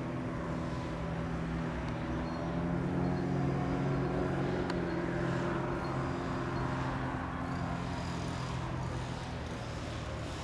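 Reims Cessna F337G Skymaster's twin piston engines and propellers, one at the nose and one at the tail, running with a steady hum. The sound grows louder about three seconds in, then eases off slightly toward the end.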